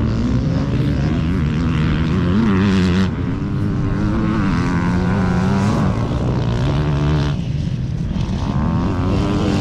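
Dirt bike engines revving on the trail, their pitch rising and falling repeatedly with throttle and gear changes.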